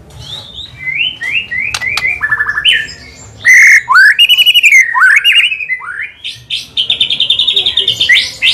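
White-rumped shama singing a loud, varied song of slurred rising and falling whistles and quick rattling note series, loudest about halfway through, with a long fast trill near the end.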